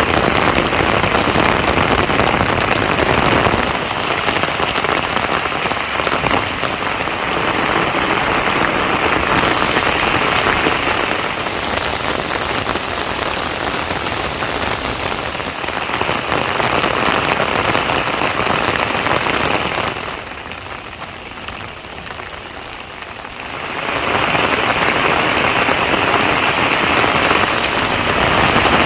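Heavy rain falling steadily. It grows quieter for a few seconds about two-thirds of the way through, then comes back as strong.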